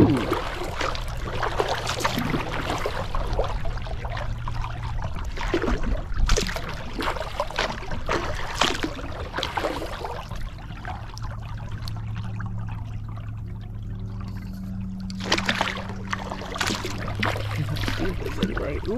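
Kayak paddle strokes: the blades dip and pull through lake water with splashing and trickling drips, a stroke every second or two. The strokes pause for a few seconds in the middle while the kayak glides, over a low steady hum.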